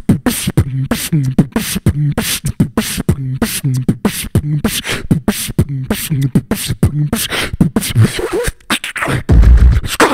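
Beatboxing an old-school beat close into a Shure SM58 handheld microphone: quick, steady kick, snare and hi-hat sounds woven with short hummed bass notes. Near the end a loud, deep bass boom takes over.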